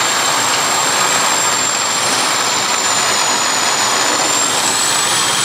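Bosch variable-speed drill running flat out, full bore, turning a Barley Crusher roller mill as it crushes grain: a loud, steady mechanical run with a high whine held at one pitch.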